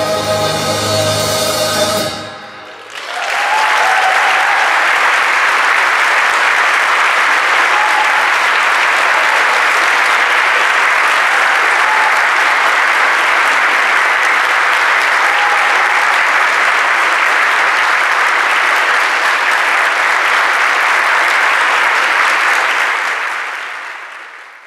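A choir with piano and drums holds a final chord that cuts off about two seconds in; a moment later an audience breaks into steady applause, which fades out near the end.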